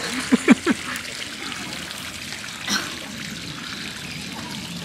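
A dog barks three times in quick succession about half a second in, then once more, more faintly, near the three-second mark, over a steady trickle of running water.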